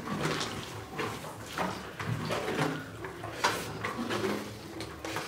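Fingers mixing and scooping rice and curry on a steel plate, with irregular scrapes and small knocks against the metal, and eating sounds in between.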